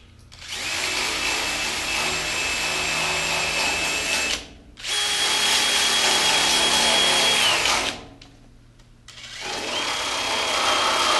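Cordless drill spinning a small abrasive disc against the steel edge of a fender, sanding it to bare metal to prepare it for welding. It runs in three bursts of a few seconds each: each one is a steady whine with scraping that winds up and winds down, separated by short pauses.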